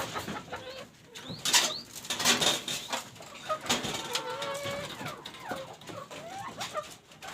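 Free-range chickens clucking and calling around a feeder, many short calls overlapping, with a few sharp rustling knocks about one and a half and two seconds in.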